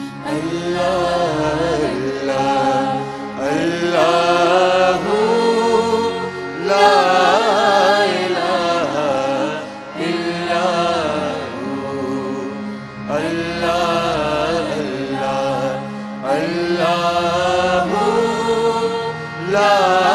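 A male lead voice sings a devotional naat, with an ensemble behind him, in long melodic phrases broken by short pauses every few seconds, over a steady low drone.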